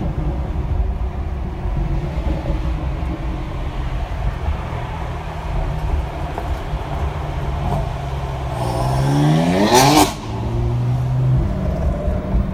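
BMW M4's twin-turbo straight-six accelerating hard: after several seconds of low rumble, its engine note climbs steeply and loudly for about a second and a half, then cuts off suddenly. A steadier, lower engine note follows as it pulls away. A low, steady cabin and road rumble runs underneath.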